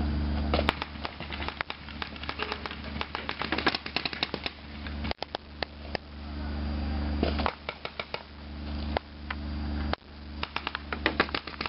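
Paintball markers firing in rapid volleys of several shots a second, in bursts with short pauses between, over a steady low rumble.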